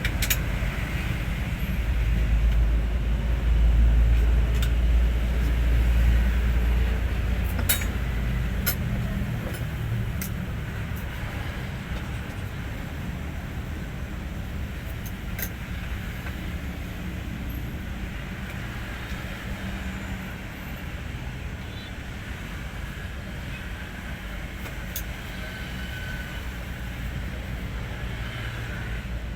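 Hino 500 truck's diesel engine running, with a deep low rumble that swells louder for a few seconds near the start and then settles to a steady run, with a few light clicks over it.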